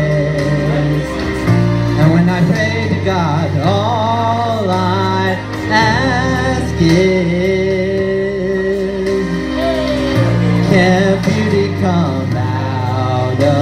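A man singing long, wavering, drawn-out notes into a microphone over a karaoke backing track played through PA speakers.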